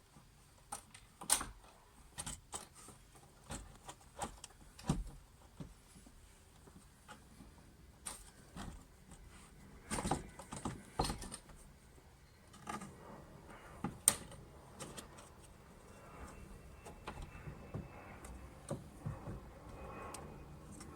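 Irregular clicks and knocks as a new fuel pump is worked down into a Citroën Saxo's fuel tank, with one sharp knock about 14 seconds in and steadier scraping in the second half.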